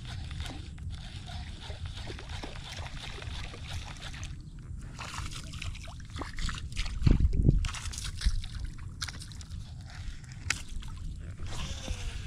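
Water sloshing and splashing close by as a fishing lure is worked across the surface near the bank, with a louder splash about seven seconds in, over a low steady rumble.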